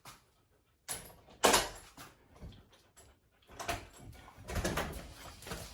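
Sudden knocks and scraping from household handling: the loudest about a second and a half in, then a busier run of short knocks and rustling in the second half.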